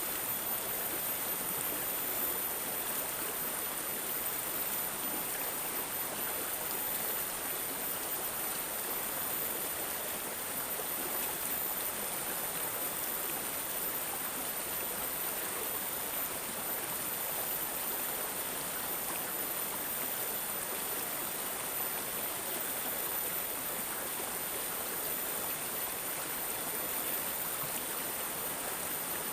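Stream water babbling and gurgling steadily, an even rush with no pauses.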